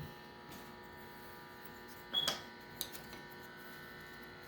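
Faint steady electrical hum, with a light tap of a puzzle piece set down on the table about two seconds in and a softer tap shortly after.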